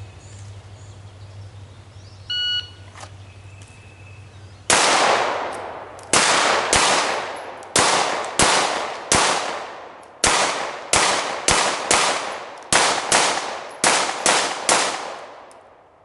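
Shot timer beeps once, then a handgun fires a string of about fifteen shots over some ten seconds, each shot followed by a short fading echo.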